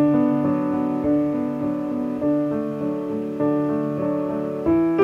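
Piano music, with a new note or chord struck about every half second and ringing on between strikes.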